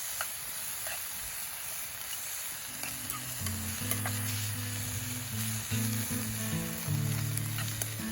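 Wild boar meat sizzling and crackling as it cooks over a wood campfire, with fine pops scattered through the sizzle. About three seconds in, background music of low held notes comes in under it.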